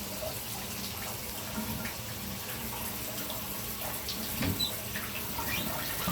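Water running steadily from a bathtub and shower fixture, a continuous splashing stream with small scattered drips and splashes.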